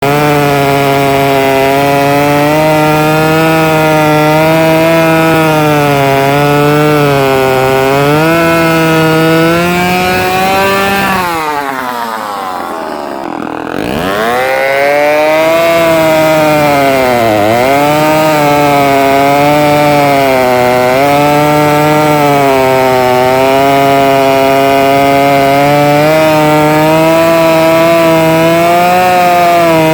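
Late-1960s Homelite Super XL Automatic two-stroke chainsaw running at high speed, its pitch wavering. About eleven seconds in, the engine speed and loudness drop steeply, then climb back up within about three seconds; a shorter dip follows a few seconds later.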